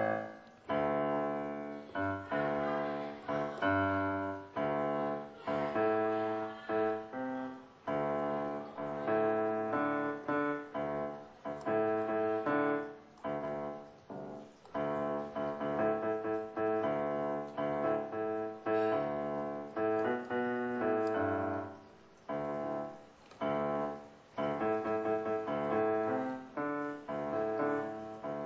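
Korg SP-170 digital piano being played: notes and chords struck one after another in a flowing, unbroken stream.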